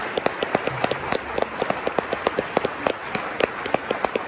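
Concert audience applauding, with one pair of hands clapping close by, about four to five loud claps a second over the crowd's applause.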